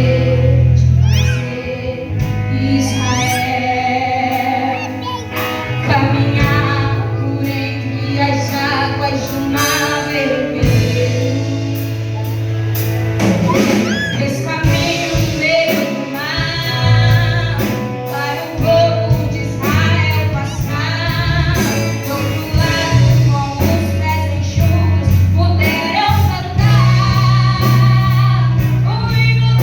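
A woman singing a gospel song with a live church band: a stepping bass line, drums and guitar under the voice.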